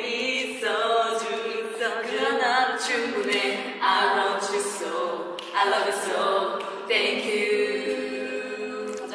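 Several women singing a cappella together, in a string of held phrases with no instruments.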